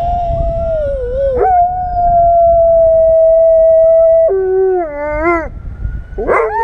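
German Shepherd howling, set off by a siren: long held notes, the longest steady for about three seconds. It then drops lower and wavers, and a new howl rises near the end.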